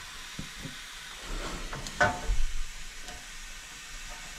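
A steady hiss and sizzle at a freshly brazed copper pipe coupling kept cool under a wet rag. There are a few light taps, and one sharp ringing metal clank about two seconds in.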